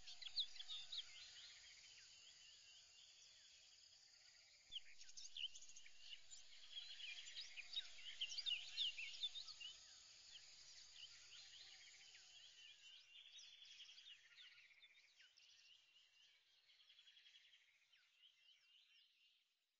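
Faint chirping of small birds over a steady high insect-like hiss, swelling slightly a few seconds in and then fading away to silence at the end.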